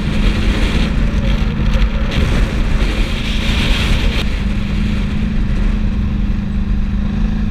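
Quad bike (ATV) engine running at a steady, even speed while riding over grass, with wind rumbling on the helmet microphone. A louder hiss rises for about two seconds in the middle.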